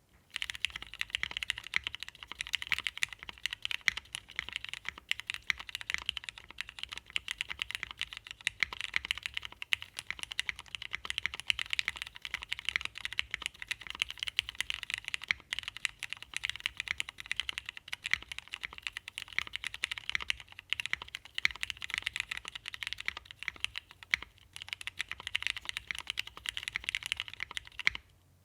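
Continuous fast typing on a plateless 60% mechanical keyboard with lubed, retooled Cherry MX Black linear switches and CRP Tulip keycaps, a steady stream of key clicks with a brief pause near the end.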